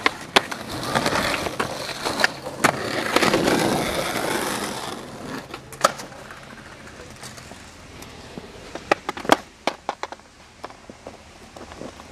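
Skateboard wheels rolling on concrete, with sharp clacks of the board hitting the ground. The rolling noise drops away about five seconds in, leaving scattered clacks, several in quick succession a little past the middle.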